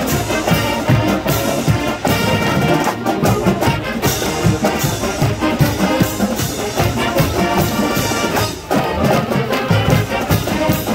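College marching band playing, with brass over a steady drum beat.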